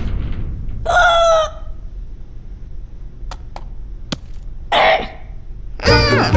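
Cartoon parrot squawking twice, about a second in and again near five seconds, with a few faint clicks between. Background music starts near the end.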